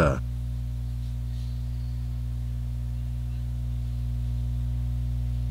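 Steady, low electronic drone: a few deep tones held without change, a sci-fi ambient hum played by the Jarvis voice-assistant software.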